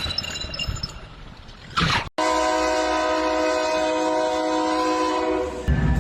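A steady multi-tone horn blast, starting abruptly about two seconds in and held for about three seconds before cutting out.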